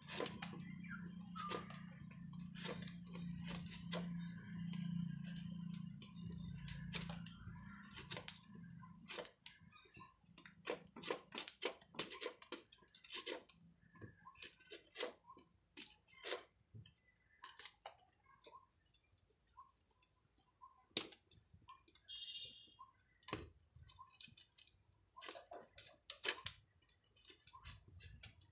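Carrot being sliced on the blade of a stainless-steel box grater: a run of short scraping strokes, irregularly spaced about one or two a second.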